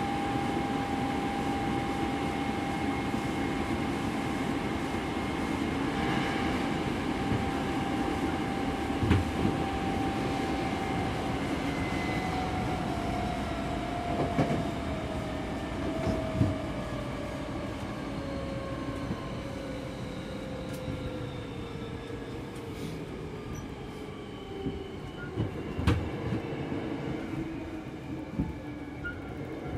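Hankyu 5300 series electric train heard from inside the car while running: a steady drive whine over the wheel-and-rail rumble. From about twelve seconds in the whine falls in pitch as the train slows for its next stop, with a few sharp knocks along the way.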